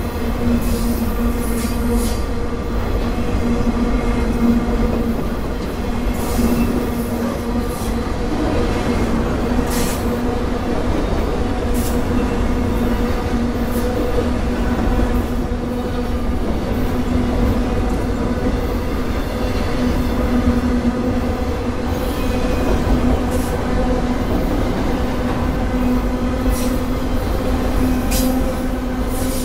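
Freight train of autorack cars rolling past: a steady rumble of steel wheels on rail, with a steady droning tone over it and scattered sharp metallic screeches and clanks.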